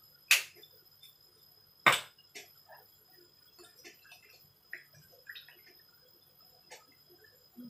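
A green-capped sauce bottle handled and shaken over a pan: two sharp clicks about a second and a half apart, then faint scattered ticks and small clinks.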